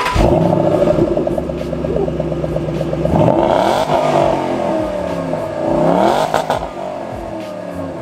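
Shelby GT500's supercharged 5.4-litre V8 running just after a start, then revved twice with the pitch rising and falling back.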